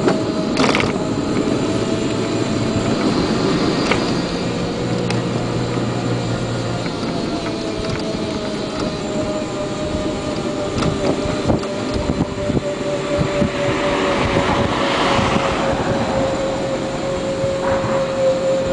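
Electric motorcycle's motor whining steadily under load on a steep climb of about 17%, over wind and road noise; the whine's pitch sinks slowly. The rider feels the motor straining and briefly losing power every few seconds, which the shop put down to the turbo button not being pressed firmly enough.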